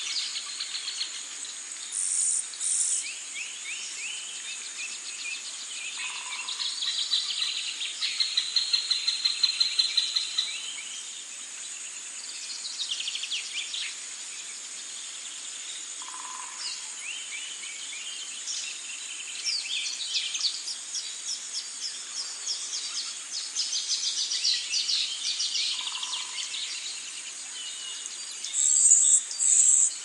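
Birds singing and chirping in rapid trills of repeated notes over a steady high-pitched insect drone.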